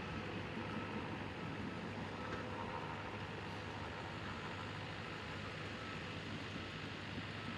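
Diesel engines of heavy construction equipment running steadily, a low rumble, with faint short beeps now and then.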